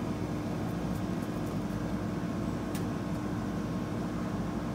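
Steady low mechanical hum with a constant pitched tone, joined by a few faint light ticks.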